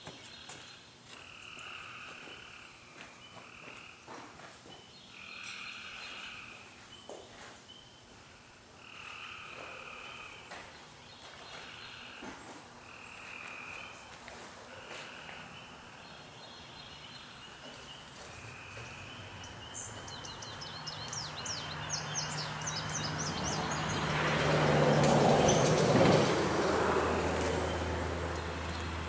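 Repeated croaking animal calls, each about a second long, coming every one and a half to two seconds through the first half. In the second half a louder rush of noise with a low hum builds up, peaks near the end and eases off.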